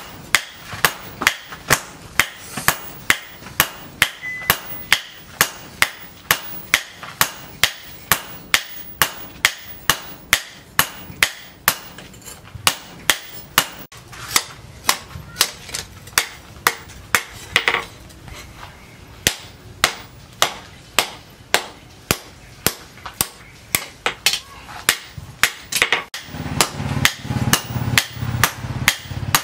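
Hammer blows on a red-hot leaf-spring steel billhook blade against a steel anvil: a steady run of sharp metal-on-metal strikes, about two a second. A low steady hum comes in near the end.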